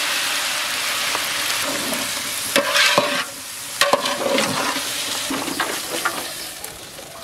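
Chopped vegetables sizzling in hot oil in a large metal pot while a long slotted metal ladle stirs them, with a few sharp knocks of the ladle against the pot about three and four seconds in. The sizzle dies down toward the end.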